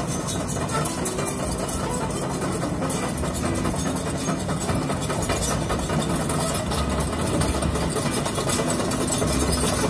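Diesel engine of a heavy construction machine running steadily at a low, even pitch.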